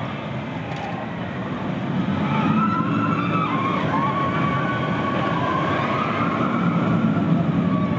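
Vekoma Suspended Looping Coaster train running through the track with a loud, steady rumble, a wavering high tone riding over it from about two seconds in.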